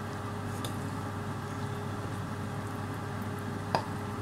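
Wooden spatula scraping stir-fried beef and vegetables out of a wok onto a serving plate, with one clack about three-quarters of the way through, over a steady low hum.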